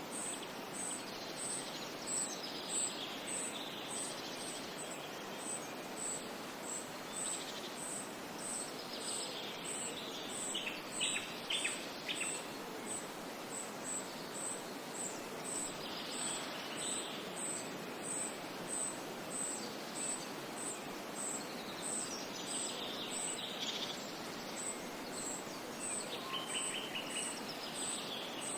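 Natural outdoor ambience: a steady hiss with a regular high-pitched chirp repeating over and over, and birds calling now and then, loudest about ten to twelve seconds in.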